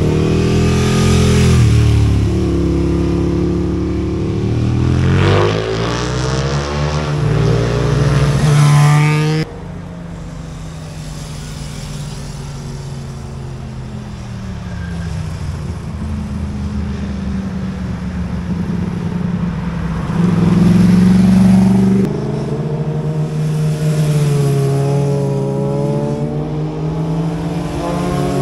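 Motorcycles passing close by one after another, their engines revving up and down with stepped changes in pitch as they shift gears. The sound changes abruptly twice, about a third of the way in and near three-quarters, as one bike gives way to the next.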